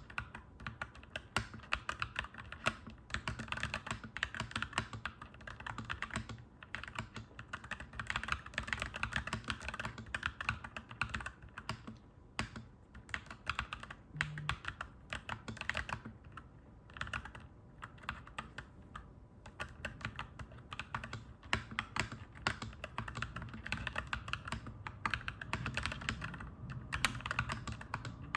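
Continuous typing on a clacky mechanical keyboard: fast, irregular key clacks with a few short pauses between bursts.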